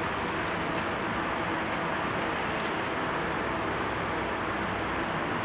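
Steady outdoor background noise: an even hiss with a faint low hum, holding level without change.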